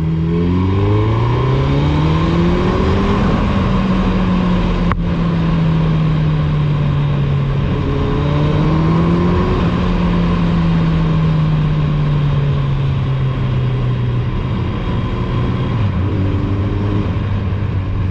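Suzuki Hayabusa's inline-four engine running through a Two Brothers Racing aftermarket exhaust, under way. The revs climb over the first few seconds, ease off slowly, climb again briefly about eight seconds in, and drop near the end, over steady wind rush. One sharp click about five seconds in.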